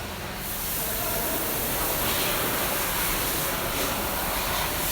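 Steady hiss and rush of running machinery, a little louder from about half a second in, with a few faint sharper bursts of hiss near the end.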